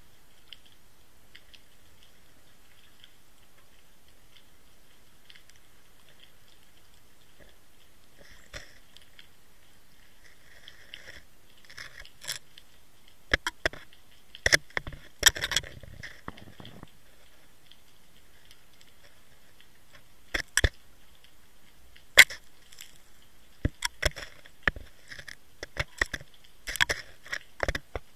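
Sharp clicks and crunching knocks of gravel and shells against an underwater camera housing as it shifts over the seabed, over a faint steady hiss. The knocks begin about a third of the way in and come in clusters, loudest in the second half.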